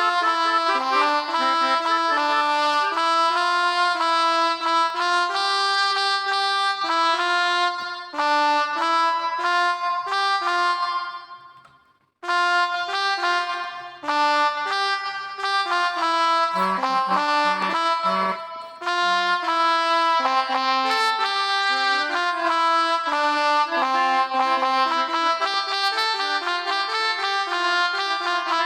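A melodica (pianika) sound from a phone app playing a melody of held, reedy notes, one after another. About ten seconds in the sound fades away and stops briefly, then the playing resumes.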